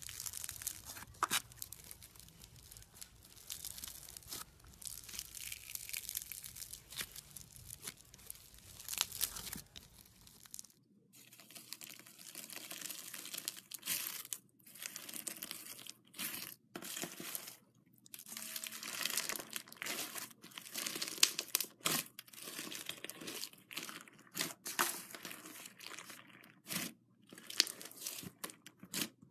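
Slime squished and pressed by hand, giving dense, irregular crackling. The first ten seconds or so are the crunch of foam-bead (floam) slime. After that come sticky crackles and pops of slime with sequins mixed in, broken by a few short pauses.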